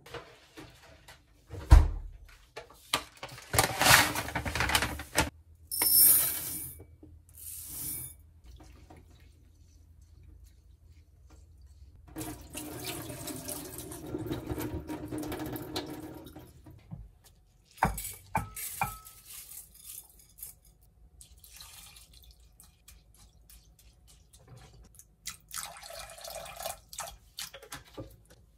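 Rice being washed at a stainless-steel kitchen sink: water running and the cloudy rinse water poured off from a bowl of rice into the sink for a few seconds, with separate knocks of bowl or pot against hard surfaces.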